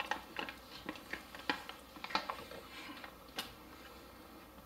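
Metal spoon scraping the leftovers out of a foil MRE retort pouch: a run of irregular short scrapes and clicks.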